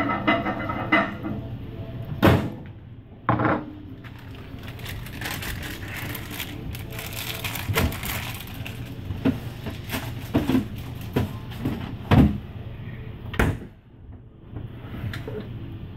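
Kitchen handling noise: several sharp knocks and clatter of things being moved and set down, spaced a few seconds apart, over a steady low hum.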